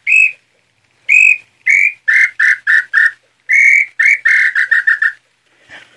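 Nambu pé-roxo (tataupa tinamou) throat call (pio garganta) being blown: two phrases of whistled notes, each opening with one or two longer, slightly higher notes and then quickening into a run of shorter notes, imitating the tinamou's song.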